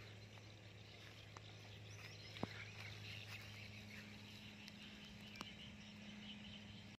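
Near silence: a faint steady low hum with a few faint ticks, the sharpest about two and a half seconds in.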